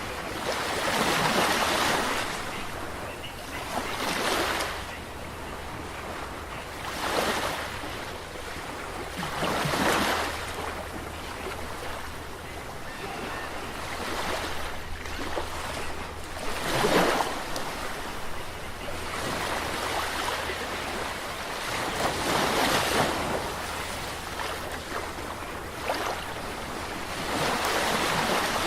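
Sea waves breaking and washing in, each one a rushing surge that swells and fades, arriving every three to six seconds, with a steady low rumble underneath.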